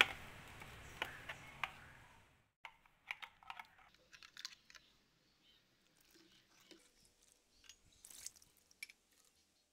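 Faint scattered clicks and taps of a silicone spatula scraping thick ground masala paste out of a steel mixer-grinder jar and knocking against its rim, with a low hum under the first two seconds.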